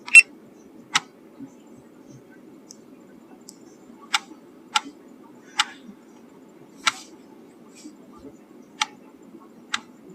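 A series of about nine sharp clicks at uneven intervals, the loudest right at the start, over a faint steady low hum.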